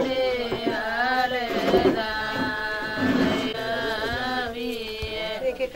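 Music: a voice singing an Indian melody in long, wavering held notes, with a few drum strokes beneath.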